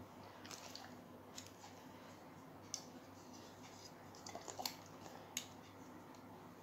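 A dog eating from a plate on the floor: a few faint, scattered clicks and crunches of its teeth and mouth, the sharpest about three seconds in and again around five seconds.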